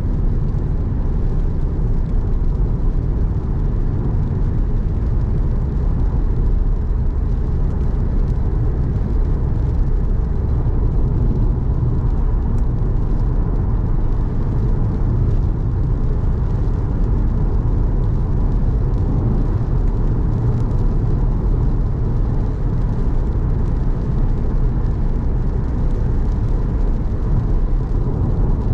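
A car driving on a wet road in the rain: a steady low rumble of engine and tyres.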